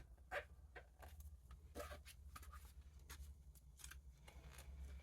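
Faint rustling of collectible trading cards and pack wrappers being handled, with a few soft scrapes and taps, the loudest about half a second in.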